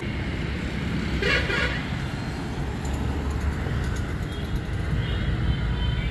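Roadside traffic: a steady low rumble of passing truck and vehicle engines, with a short vehicle horn toot about a second in.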